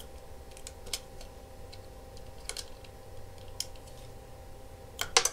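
Quiet steady hum with a few scattered light clicks, and a quick run of three or four clicks near the end.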